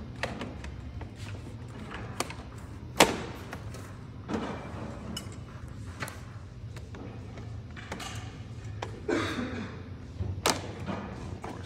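Scattered knocks and clacks of slatwall panels and a metal frame bar being fitted together, with the loudest sharp knock about three seconds in, a scrape and another knock near the end, over a steady low hum.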